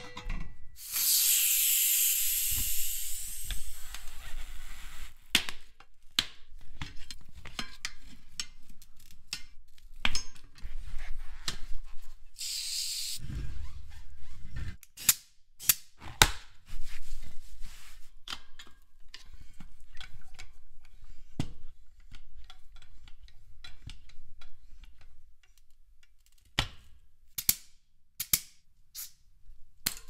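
Hand work on a motorcycle wheel and tire: many short clicks and knocks of tools and parts, with two spells of hissing, a long one near the start and a shorter one about halfway through.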